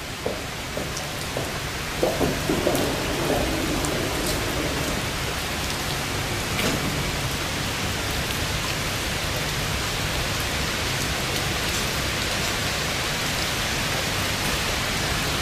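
Rain falling steadily, heard as an even hiss, with faint muffled voices about two to four seconds in.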